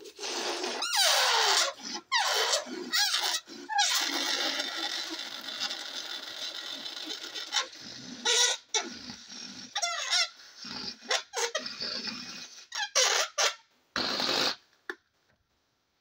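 Air squealing and hissing out of the stretched neck of an inflated latex balloon as it is let down, in repeated honking squeals whose pitch wobbles and slides downward, with a steady rush of escaping air in the middle; the squealing stops about a second before the end.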